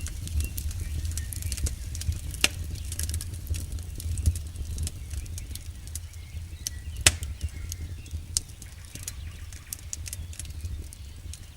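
Firewood burning in a campfire, crackling and popping irregularly, with two louder pops about two and a half and seven seconds in, over a steady low rumble.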